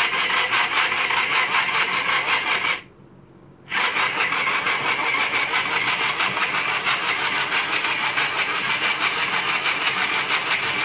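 Toy food processor's small electric motor running with a rapid whirring rattle as it mixes slime in its bowl. It cuts out for about a second around three seconds in, then starts again and runs on steadily.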